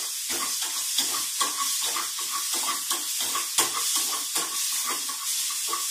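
Chopped ginger and grated coconut sizzling in oil in a kadai, with a spoon stirring and scraping the pan in quick, regular strokes, about four a second, as the mixture is sautéed.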